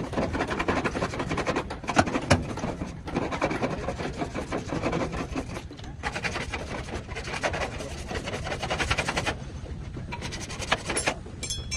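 Rapid rasping, rubbing strokes of abrasive hand work on a car's body panel, with a short lull about nine seconds in.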